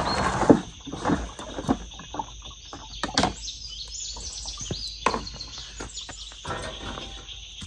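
Scattered sharp knocks and scrapes of a knife on a wooden cutting board, most of them in the first few seconds, with birds chirping in the background.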